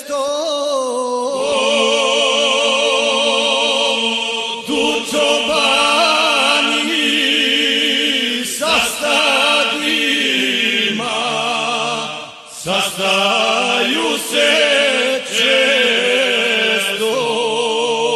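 A Serbian men's folk group singing together, with long held notes and vibrato and a few brief breaks between phrases.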